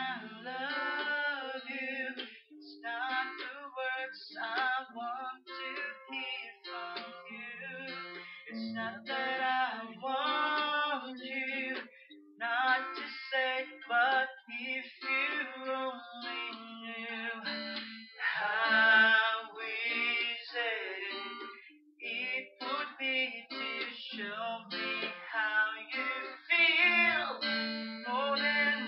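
A man singing a slow ballad to an acoustic guitar accompaniment, his sung phrases separated by short pauses while the guitar carries on.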